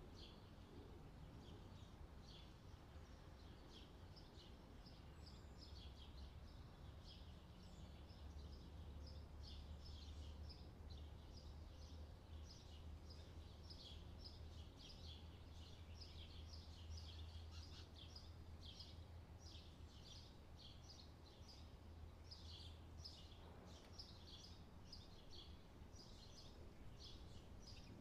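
Faint chirping of small birds, many short high chirps in quick succession, over a low steady hum.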